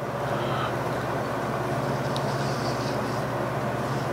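Steady low mechanical hum of shop machinery running. A single light click comes about two seconds in, and sheets of paper rustle faintly as the drawings are handled.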